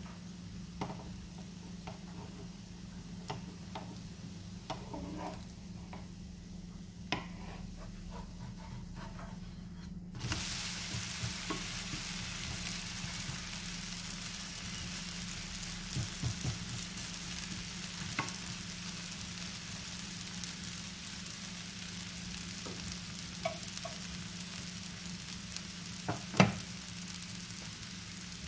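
Crepe frying in a lightly oiled granite-coated pan: a steady sizzle that starts abruptly about a third of the way in, after a quieter stretch with a low hum and a few small clicks. A single sharp tap comes near the end.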